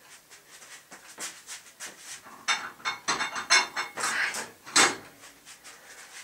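Kitchen clatter: dishes and utensils being handled, a run of irregular clinks and knocks that grows busiest a little past halfway and thins out near the end.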